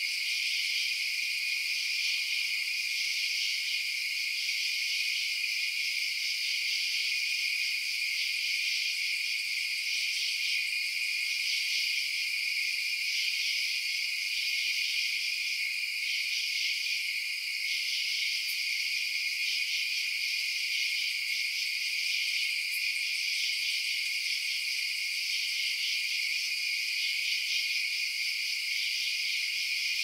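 Night chorus of crickets and katydids: a steady high-pitched trill with a denser chirring layer above it that pulses, swelling and dipping every second or two.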